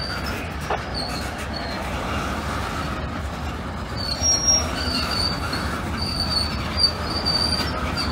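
Boxcar wheels squealing on the rails in broken high-pitched bursts, more often in the second half, over a steady low rumble of a freight train rolling through a grade crossing.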